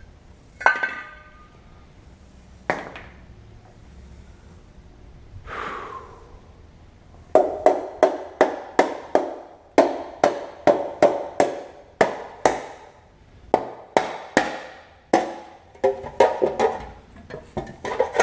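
Hammer striking metal engine parts: a run of sharp blows, about three a second, each with a short ring, beginning about seven seconds in and coming in groups. Before that, a single metallic clink, a click and a brief scrape.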